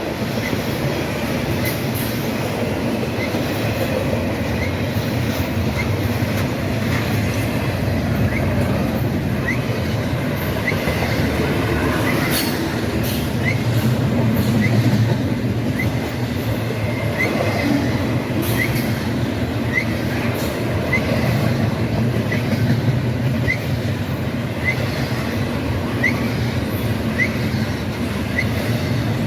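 Freight train rolling past with a steady rumble of wheels on rail. A faint short squeal recurs about every second and a half.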